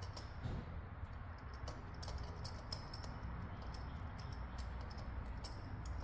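Faint, scattered light clicks of hand tools and a spark plug being handled, over a steady low hum.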